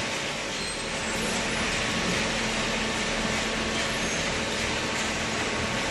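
Steady machinery noise with a constant low hum.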